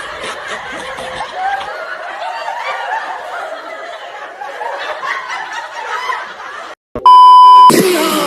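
Snickering and chuckling laughter from several overlapping voices, cut off about seven seconds in by a very loud, steady beep that lasts under a second, with music and speech starting right after it.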